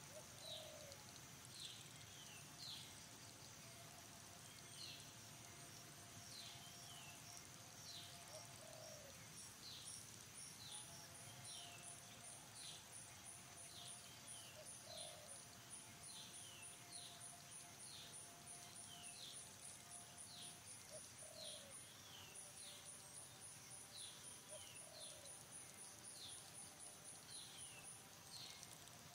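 Faint forest birdsong: a bird repeating a short falling chirp about once a second, joined about ten seconds in by a rapid, high-pitched pulsing trill that stops shortly before the end.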